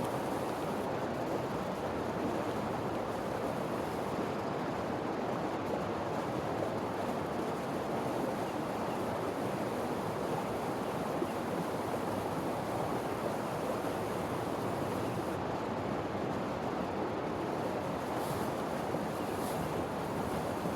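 Creek water rushing steadily, an even, unbroken wash of flowing water.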